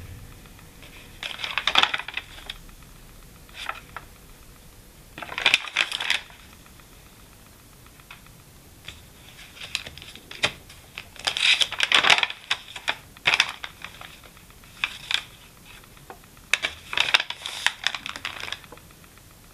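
Paper pages of a notebook being handled, turned and pressed flat by hand: crisp rustles and flaps in irregular short bursts.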